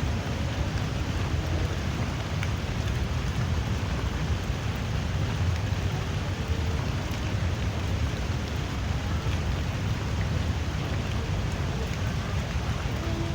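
Light, drizzling rain falling in a steady, even hiss with a low rumble underneath.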